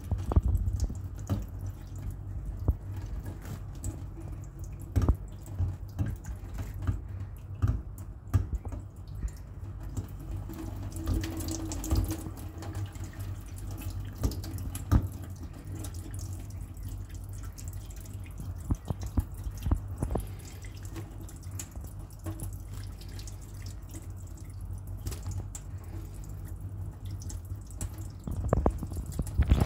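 Water from a kitchen tap running steadily into a stainless-steel sink, with irregular splashes and drips as the stream pours over a small parrot held in a cupped hand beneath it.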